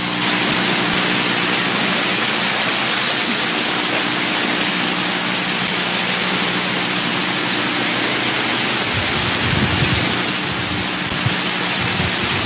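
Steady hiss with a faint low hum: open-microphone and room noise from a church sound system, with a few low bumps near the end.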